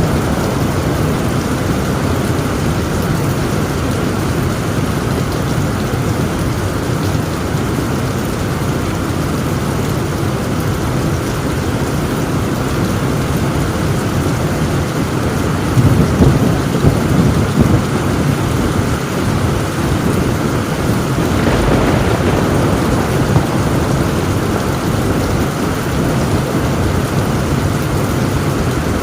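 Heavy rain pouring steadily on a tin roof, with thunder rumbling about halfway through and a second swell of rumble a few seconds later.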